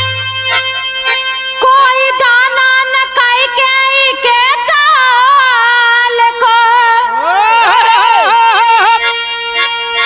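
Birha folk music: harmonium playing held notes under a drawn-out vocal line that glides and wavers in pitch, with dholak strokes.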